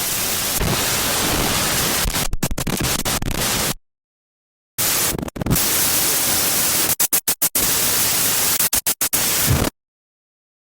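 Two digital glitch sound effects, each a burst of harsh static hiss that stutters with rapid cut-outs, separated by about a second of silence.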